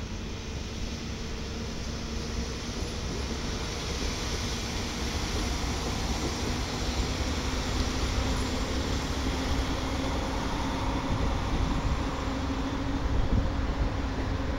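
EU07 electric locomotive pulling a mixed freight train away at low speed: a steady rumble with a hum that rises slightly in pitch, growing louder as it draws closer.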